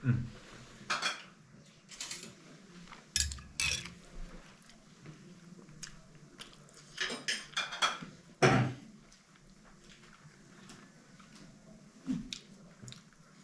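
Spoons and plates clinking and scraping during a meal of momos and soup, in short scattered clatters with quiet gaps between.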